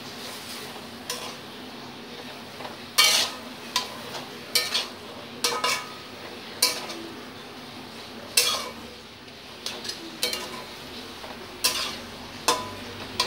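Flat metal spatula stirring and scraping mashed banana flower and potatoes around a metal kadai, with irregular clinks of the spatula against the pan about once a second. Under them is a faint, steady sizzle of the mixture frying on a low flame.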